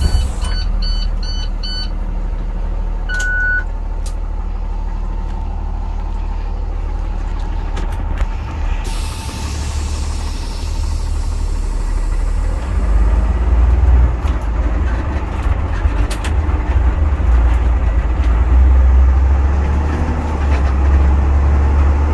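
A school bus engine rumbles inside the cab and grows louder as the bus pulls away and gathers speed. Near the start there is a quick run of about five beeps, then a single longer beep. A steady hiss comes in abruptly about nine seconds in.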